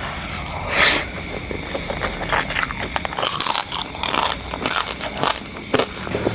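A person eating close to the microphone: chewing and biting, with many irregular sharp clicks and crackles.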